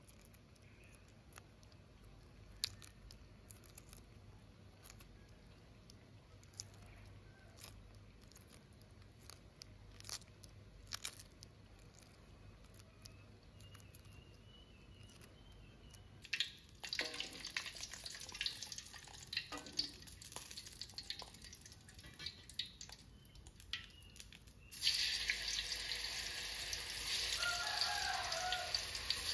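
Faint crackling clicks of boiled-egg shell being peeled off by hand. Then, from about 17 seconds in, food deep-frying in oil in a wok: a crackling sizzle that turns loud and steady about 25 seconds in.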